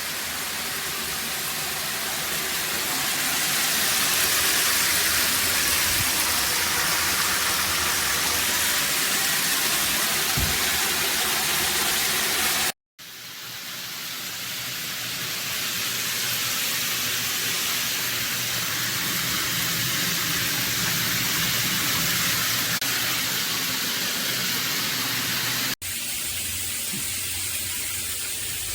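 Water spraying steadily from a stainless steel rainfall shower head, a dense even hiss. The sound cuts out briefly about midway and again near the end.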